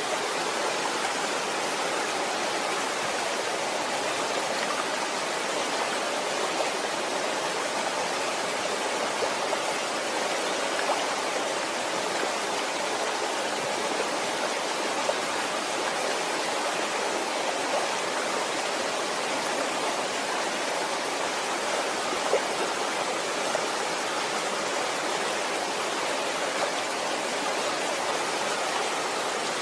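Waterfall: water falling and rushing in a steady roar of white noise with no change, only tiny splashes here and there.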